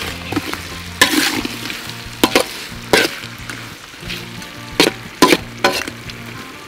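Spatula scraping and knocking against a wok as river prawns are stir-fried in it, about six sharp strokes spread across the stretch, with sizzling underneath.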